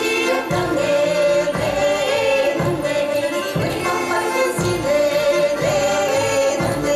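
Women's choir singing a Nenets folk song in long held notes, with accordion accompaniment and a low beat about once a second.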